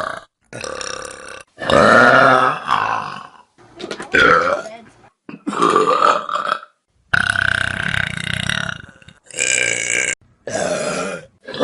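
A string of loud human burps from different people, one after another, about seven in all, each one to two seconds long. Sharp cuts with brief silences separate them.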